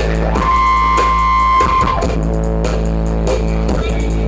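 Loud band music with guitar, bass and drums, and a held high note from about half a second to two seconds in.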